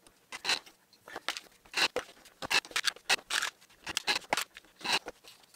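A quick run of short scrapes and knocks, about a dozen, as MDF clamp pieces and a cordless drill are handled and set down on a cutting mat.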